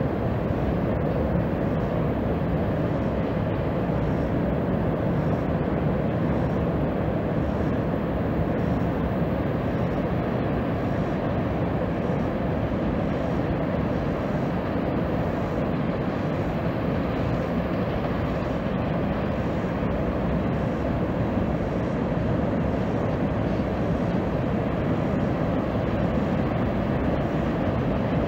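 Norfolk Southern freight train rolling across a steel railroad trestle: a steady low rumble of the cars passing, with no horn or sudden noises.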